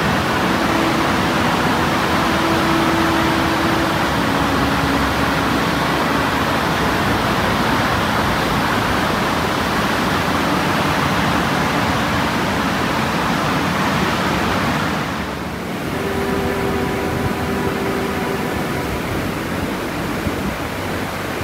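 Large waterfall, the Chaudière Falls, rushing in heavy flow: a loud, even roar of falling water that dips briefly about fifteen seconds in.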